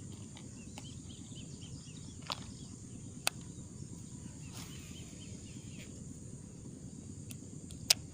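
Outdoor field ambience: a steady high insect drone and a small bird's quick repeated chirps over a low steady rumble. Three sharp clicks cut through, the loudest near the end.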